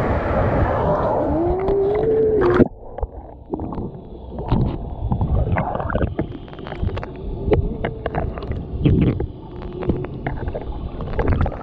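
Indoor water-park lazy river, first above the surface with splashing water and crowd noise, then muffled as the camera goes under about two and a half seconds in. Under the water the sound is dull and low, full of bubbles clicking and popping, with a faint steady high whine.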